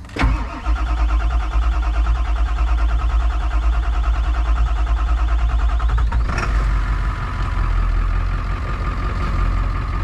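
1999 Ford F450's 7.3 Power Stroke V8 turbo-diesel cranking on the starter for about six seconds, then catching and settling into a steady idle. It fires once the high-pressure oil pump reservoir, found low and topped off, has filled and let the oil pressure build.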